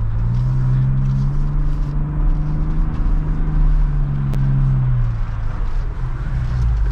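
Ford Bronco Raptor's 3.0-litre twin-turbo V6 pulling steadily on a dirt trail, heard from inside the cabin; its note rises slightly, holds, then eases off about five seconds in. A steady low rumble from the tyres and chassis on the rough ground runs underneath.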